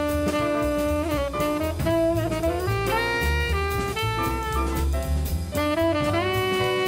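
Jazz theme music with a saxophone playing the melody over a drum kit, running steadily under the end credits.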